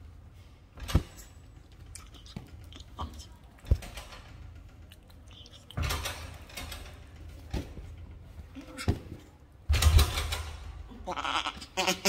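A young pet macaque close to the microphone, making soft animal calls amid rough rustling bursts, with a few sharp clicks scattered through.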